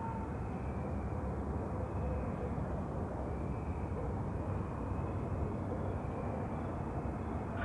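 Night-time outdoor ambience: a steady low rumble of distant traffic, with faint thin high tones coming and going above it.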